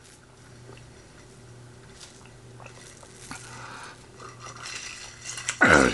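Close-up eating sounds: a man chewing and biting food, with soft scrapes and light clicks over a low steady hum. Near the end comes a short, louder sound that falls in pitch.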